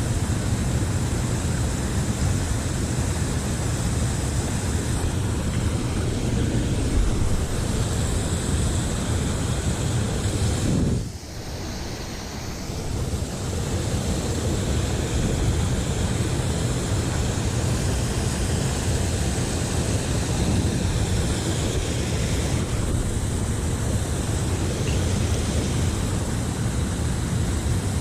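Steady rush of river water with wind buffeting the microphone, heavy in the low end; the noise drops briefly about eleven seconds in.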